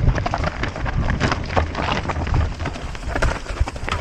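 Mountain bike rolling over a rough dirt trail: tyres crunching on loose dirt and stones and the bike rattling, many irregular clicks over a low rumble.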